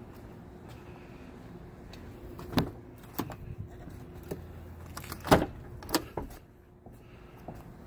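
Pickup truck's front door being unlatched and opened: a handful of sharp clicks and knocks spread over a few seconds, the loudest a little past halfway.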